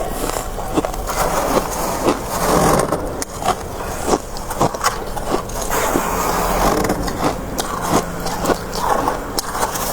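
Crisp freezer frost crunching close up: an irregular run of sharp crackles over a rough scraping noise.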